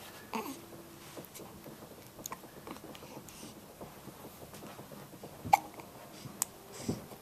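A baby hiccupping: one sharp hiccup just after the start, then a louder pair close together near the end.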